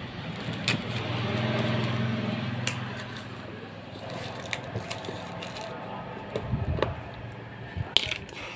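An engine hum swells and fades over the first few seconds, as of a passing vehicle, with scattered clicks and crinkles of plastic wrap being peeled off and a cardboard phone box being handled.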